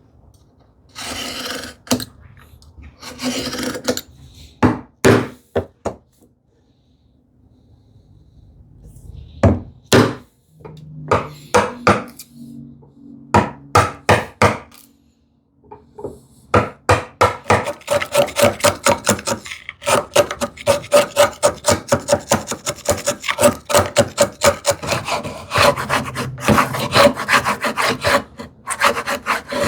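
Hand tools working wood: a few scraping strokes and sharp knocks, then a long run of quick rhythmic rasping strokes on the wood, about four or five a second, in the second half.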